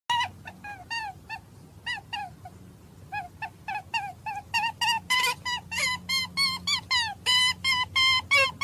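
An animal's short, high-pitched squeaking calls, each dipping in pitch, repeated in quick succession and coming faster and closer together about halfway through, over a faint low hum.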